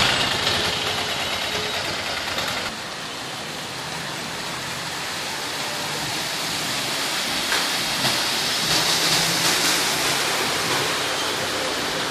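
Heavy monsoon rain falling steadily on a flooded street, with vehicles driving through the flood water and their engines faintly underneath.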